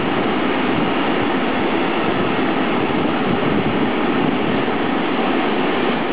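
Freight train of tank wagons rolling past, a steady, loud noise of wheels running on rails.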